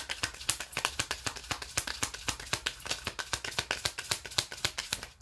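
A deck of tarot cards being shuffled by hand: a fast run of crisp card clicks and slaps that stops abruptly near the end.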